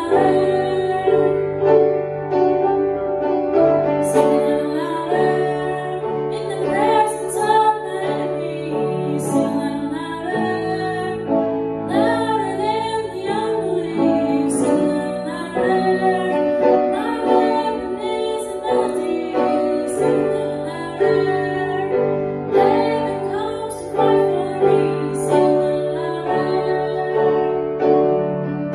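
Music: a song sung by a woman's voice with piano accompaniment.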